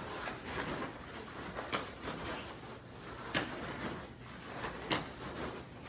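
Bare feet running and slapping on foam floor mats in quick shuttle sprints, an uneven patter of footfalls with a few sharper slaps, the loudest about five seconds in.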